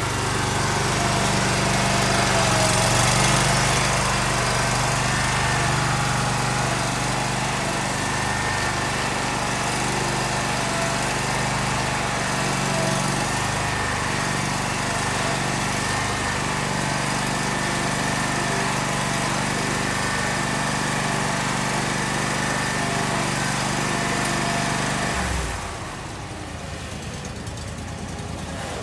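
Walker H38i riding mower's engine running steadily. Near the end its low engine note cuts off and the sound drops to a quieter noise.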